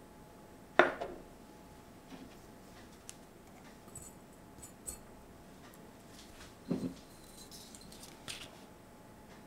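Ceramic lid of a jar clinking sharply as it is lifted off, then a small spoon lightly tapping and scraping as sugar is tipped into a ceramic bowl, with a few faint clicks and a duller knock about seven seconds in.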